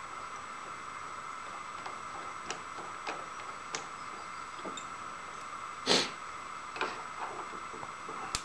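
Tools being handled at the workbench: scattered light clicks and one louder sharp knock about six seconds in, over a steady background hum.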